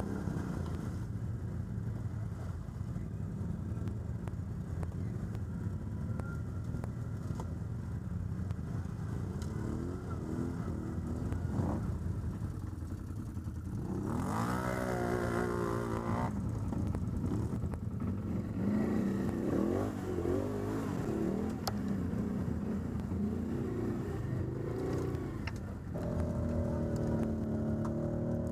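ATV (quad bike) engine running, revving up and down as it is ridden, with a sharp rise in pitch about halfway through and more revving after.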